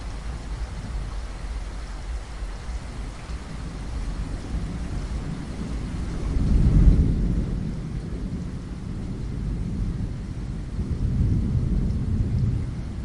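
Steady rain against a window, with rolling thunder: a low rumble swells to its loudest about halfway through, and a second, weaker rumble comes near the end.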